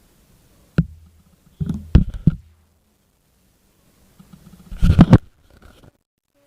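Close, sudden thumps and scrapes: a single one about a second in, a quick cluster around two seconds, and a louder cluster around five seconds.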